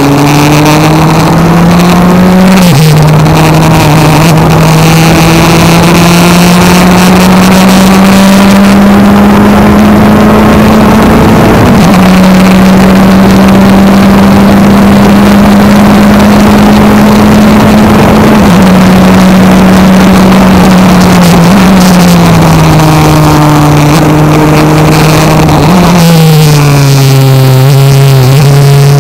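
Open-cockpit sports racing car's engine at racing speed, heard from the cockpit. It revs up and upshifts about three seconds in, holds high revs down a straight, then drops in pitch through three downshifts late on and climbs again as it accelerates out of the corner. The engine is loud, with wind rushing past.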